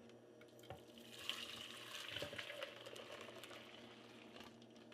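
Foamy egg-and-milk eggnog mixture poured from a mixing bowl into a pot: a faint pouring and splashing that starts about a second in and tails off near the end.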